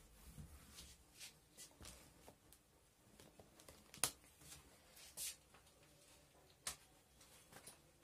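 Near silence: quiet room tone with a few faint, sharp clicks and rustles of handling, the clearest about four seconds in and a few more in the second half.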